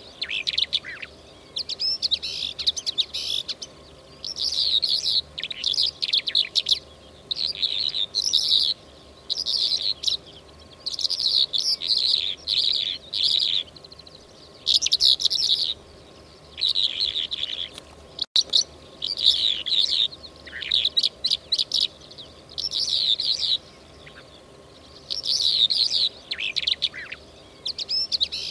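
Lark song: short, quick chirping and twittering phrases, each about a second long, repeated every second or two with brief pauses between them.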